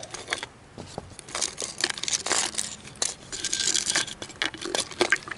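Small gear items clicking and rattling against the inside of a clear plastic Nalgene bottle as it is tipped to get them out, with plastic wrapping crinkling. The taps and rustles come irregularly, busiest in the middle.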